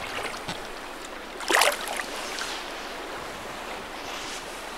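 River water running and washing around a fishing raft, a steady rushing wash, with a short louder burst about a second and a half in.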